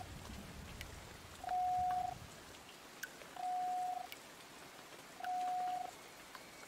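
Three electronic beeps, each a steady single mid-pitched tone about two-thirds of a second long, repeating about every two seconds. Faint scattered ticks sound underneath, and a low rumble fades out in the first two seconds.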